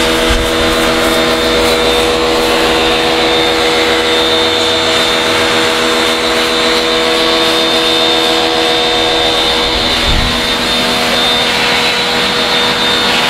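A loud, steady machine drone with several held tones, unchanging throughout, and a single low thud about ten seconds in.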